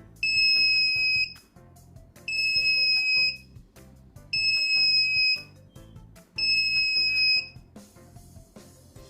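Electronic alarm buzzer on a microcontroller door lock sounding its over-temperature alarm: four long, high, steady beeps about two seconds apart. The beeps stop near the end as the temperature falls back to the 43 °C threshold and the alarm switches off.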